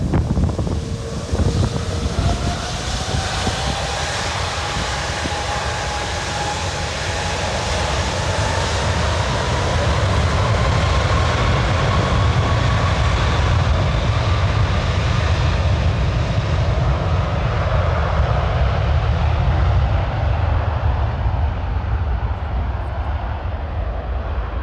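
Jet airliner's engines running loud on the runway, a broad jet roar with a whine that climbs slowly in pitch through the first half; the hiss in the roar thins out later as the aircraft moves off. Wind rumbles on the microphone underneath.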